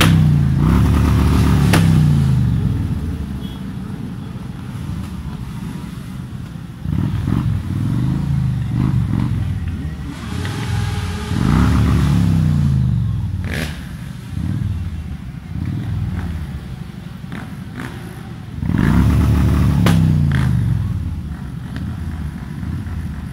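Motorcycle engines in a slow-moving column, revving up and falling back several times, the pitch rising and dropping with each blip of the throttle.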